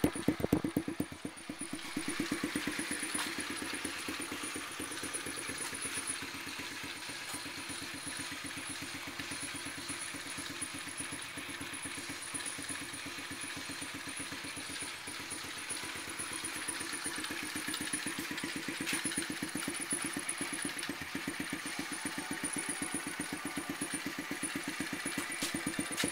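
Pit bike's small single-cylinder engine idling with an even, steady pulse.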